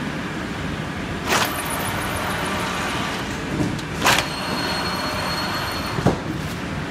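Automatic flatbed fabric screen-printing machine running with a steady mechanical rumble. Three short, sharp noises come about a second in, about four seconds in, and near the end. A faint high whine follows the second one.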